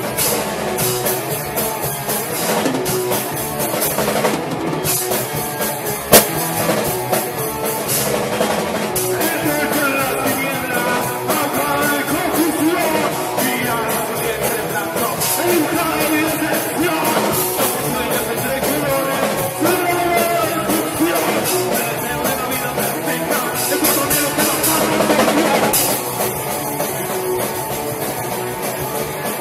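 Rock band playing together: electric guitars, bass and drum kit, with a sharp, loud crack about six seconds in.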